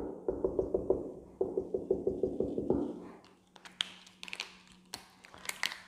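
Marker pen tapping rapidly against a whiteboard, about five taps a second, as short dashes are dabbed along a drawn outline. The tapping stops about three seconds in, and a few scattered sharp clicks of the marker follow.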